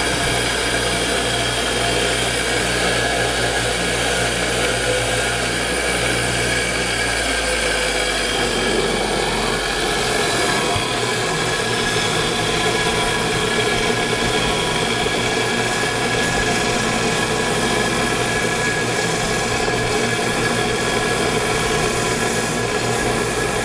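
Bench grinder running with a wire wheel, a tandem brake master cylinder held against it to scour off rust and grime. The steady noise changes about nine seconds in, its low hum dropping away.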